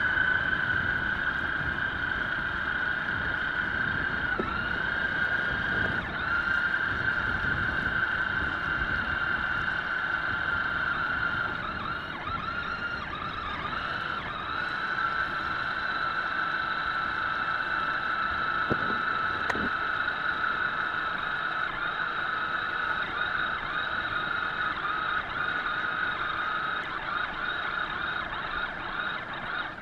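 Nikko VaporizR RC amphibious car's electric motors running as it drives through water: a steady high whine that wavers briefly a couple of times.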